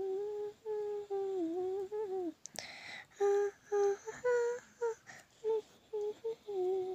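A girl humming a wordless tune: long held notes at first, then a string of shorter separate notes, with a brief hiss about two and a half seconds in.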